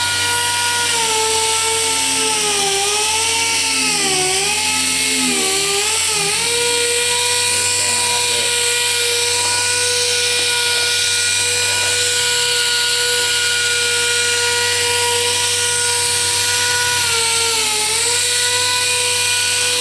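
A Quick Cut sander running continuously while colour sanding car paint, with a steady high whine over a hiss. Its pitch sags for a few seconds about two seconds in and again near the end.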